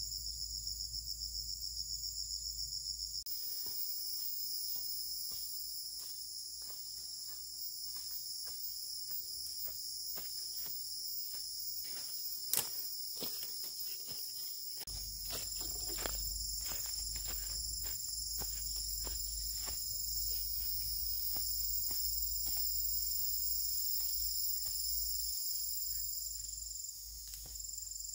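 A steady, high-pitched chorus of insects, with scattered clicks and knocks throughout and one sharper click about halfway through.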